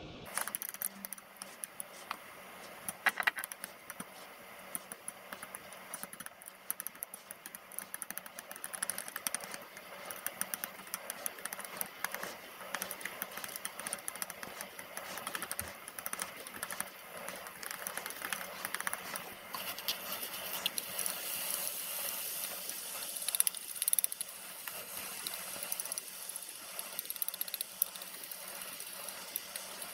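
Metal chopsticks clicking and scraping rapidly against a glass food container as raw egg is beaten into cooked rice. Near the end the mixture is scraped out into a frying pan.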